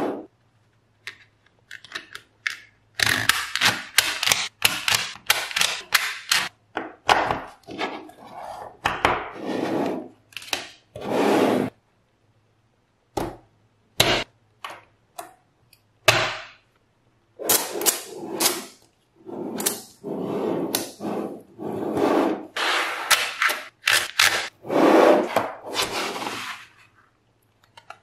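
Small metal magnet balls clicking and rattling as they snap together and are pressed and slid into a slab of rows, in irregular bursts of clatter and rubbing with short pauses between them.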